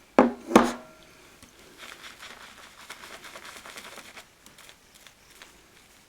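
Two sharp knocks with a brief ring, like a shaving brush knocking against the mug, then a couple of seconds of crackling, rustling noise as the brush and the thick shaving-soap lather are handled.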